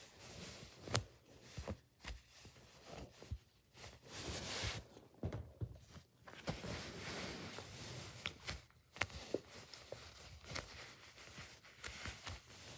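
Hands handling soft foam squishy toys on a fabric bedcover: soft rustling and brushing with scattered light taps and clicks.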